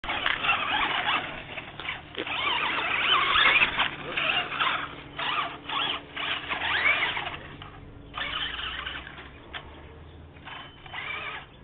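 Radio-controlled car running in short bursts, a high whine rising and falling with each burst of throttle.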